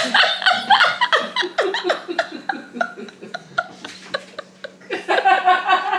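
People laughing in quick, repeated bursts, with a louder stretch of voice about five seconds in, over a steady low hum.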